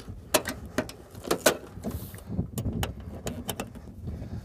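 A run of irregular sharp clicks and knocks from a camper trailer's awning box being closed and its latches handled.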